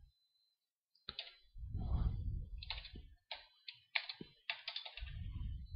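Computer keyboard keys being tapped in an irregular run of short clicks, typing out a date, with a low muffled rumble underneath twice.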